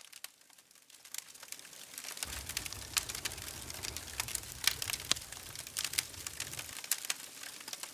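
Campfire of sticks and a log burning in a metal fire ring, crackling with irregular sharp pops and snaps, over a soft low rumble.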